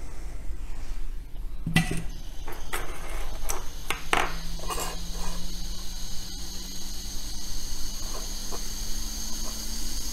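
A handful of light, sharp clicks and taps of small metal tools over a steady low electrical hum, bunched in the first half. About four seconds in, a faint steady whine starts and slowly rises in pitch.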